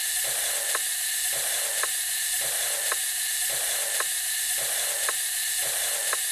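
Steady hiss with a regular mechanical tick a little under twice a second.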